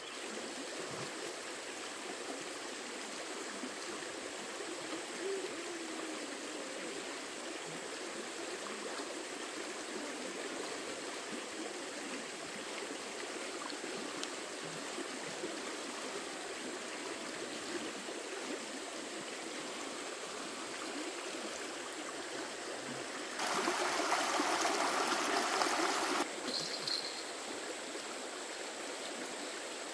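Steady running water. Near the end, a louder rush of about three seconds starts and stops abruptly.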